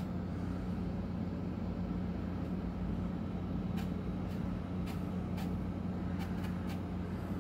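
Steady low hum of a running ceiling fan, with a few faint ticks in the second half.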